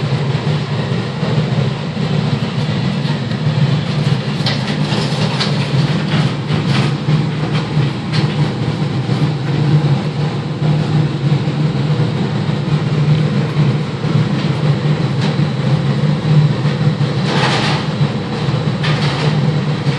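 Large mobile crane's diesel engine running with a steady low drone, with occasional clicks and rattles over it.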